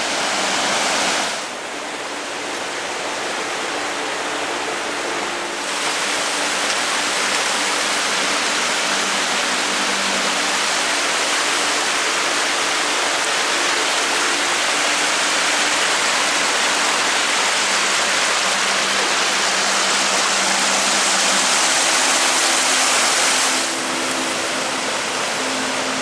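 Mallnitzbach mountain stream rushing over rocks in the gorge: a steady rush of water that drops a little about a second in, swells again near six seconds, and drops again near the end.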